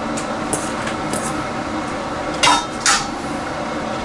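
Diced onions tipped from a stainless steel bowl into a stainless pot of stew, with a few faint clicks, then two sharp metal clinks of the kitchenware about half a second apart, over a steady hiss.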